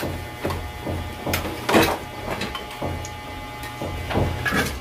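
A metal ladle knocking and scraping against a wok as rendered pork fat is ladled out into a cup, with scattered sharp clinks over a steady low hum.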